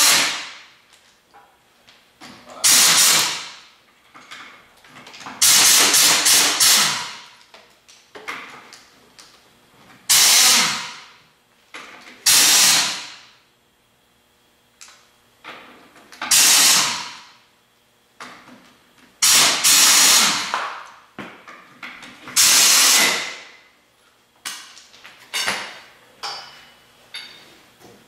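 Air impact wrench run in about eight short bursts, each about a second long and fading out as it spins down, taking the lug nuts off a Cat 216 skid steer's wheel.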